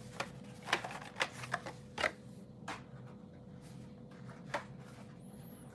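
Blister-packed Hot Wheels cars being handled: scattered light clicks and rustles of plastic blisters and card backs, most of them in the first half, over a faint steady hum.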